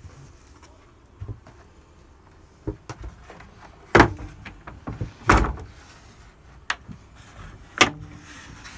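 Knocks and thumps of wooden cabin panels and boards being handled, with three loud knocks among lighter taps.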